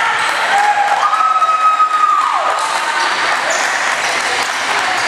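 Spectators applauding, with one long, high call from a voice that rises, holds, and falls away about two and a half seconds in.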